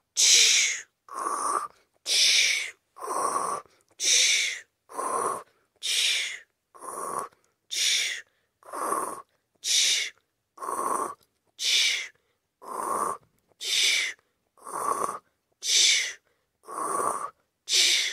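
A person acting out loud, exaggerated snoring: an even rhythm of about one breath a second, a hissy breath alternating with a lower one.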